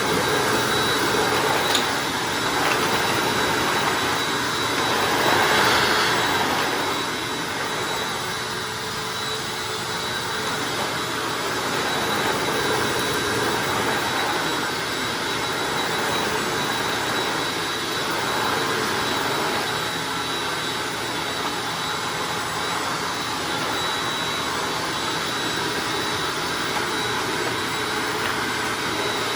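Hoover Anniversary self-propelled upright vacuum cleaner running steadily, with a brief louder swell in its rushing noise about five to seven seconds in.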